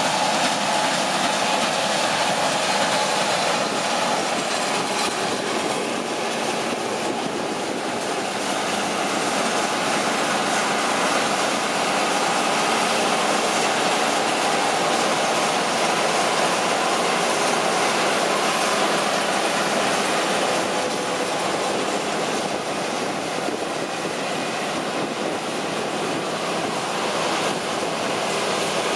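John Deere 9770 combine running steadily while harvesting soybeans: engine and threshing machinery make a continuous mechanical noise that hardly changes in level.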